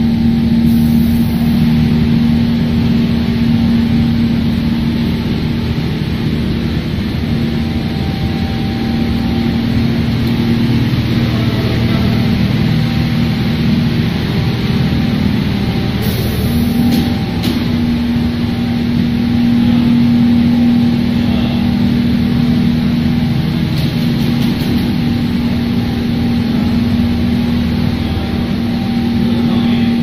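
Industrial tunnel-type microwave salt drying machine running: a steady machine hum with one strong constant low tone over an even mechanical whir.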